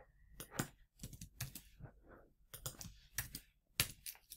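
Computer keyboard typing: about a dozen irregular keystrokes as a short line of text is edited.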